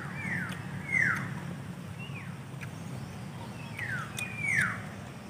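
A series of about five short whistles, each falling quickly in pitch, spaced unevenly, the loudest about a second in and near the end, over a steady low hum.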